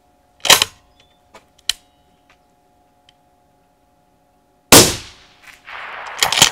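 Suppressed precision rifle shots: a sharp report about half a second in and another about four seconds later with a longer fading tail, then a further sharp crack just before the end.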